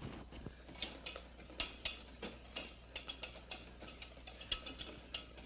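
Wire whisk tapping and scraping against a metal saucepan in a string of light, irregular clicks as a thick béchamel sauce is stirred while it cooks.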